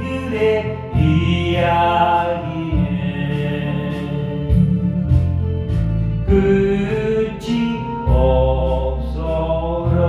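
A solo voice singing a slow Korean folk ballad over a backing track of sustained bass and chords, holding long notes that change every second or so.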